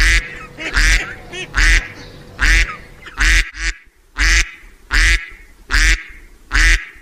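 A duck quacking in a steady series, about nine loud quacks evenly spaced less than a second apart.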